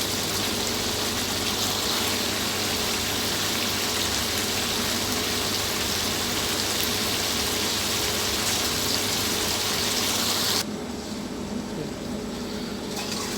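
Boiled chicken pieces frying in masala in a pan, a steady sizzle with faint crackles. The sizzle drops off sharply about ten and a half seconds in.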